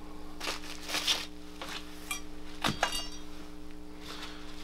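A metal camera cage and its small parts being handled and set down, giving a few light clinks and knocks; the loudest, about two-thirds through, rings briefly. A steady low hum runs underneath.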